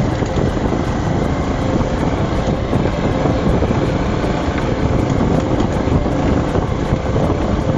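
Bajaj Pulsar 220 motorcycle running steadily while being ridden on a rough road, with wind rushing over the microphone.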